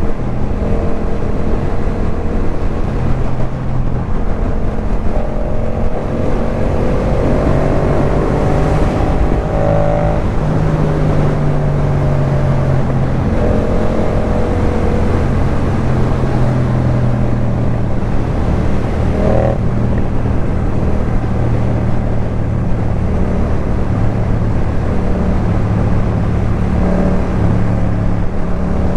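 Yamaha MT-07's parallel-twin engine through a Jeskap K4 full aftermarket exhaust, heard while riding, its revs rising and falling with the throttle.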